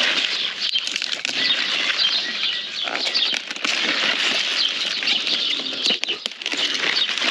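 Kale leaves being snapped off their stalks and gathered into a bunch by hand: a steady, close, crisp rustling of leaves, with small snaps and clicks running through it.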